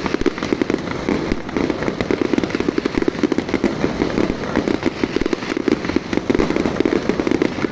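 Firecrackers going off in a dense, unbroken rapid string of bangs, many pops a second, with no let-up.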